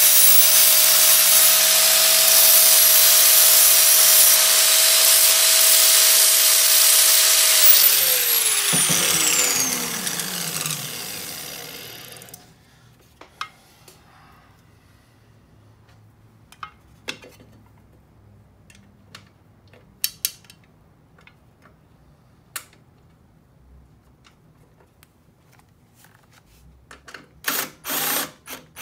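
Angle grinder grinding the edge of a steel chain guard with a loud hiss over a steady whine, then switched off about 8 seconds in, its whine falling as the disc spins down. Light clicks of parts being handled follow, and near the end a cordless screwdriver runs briefly in a couple of short bursts.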